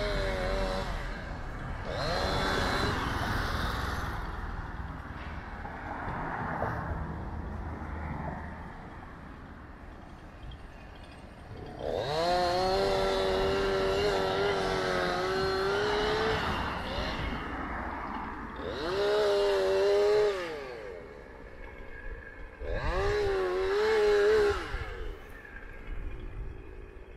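A small engine revving in bursts, rising and falling in pitch: one long hold of about four seconds, then two short revs, over a background of distant traffic.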